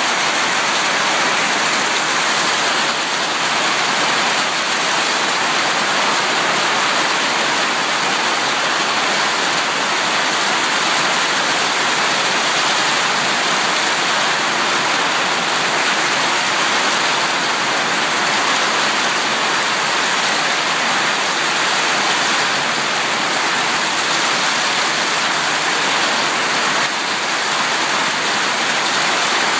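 Hail and heavy rain falling steadily during a thunderstorm: a dense, even rush of noise with no let-up.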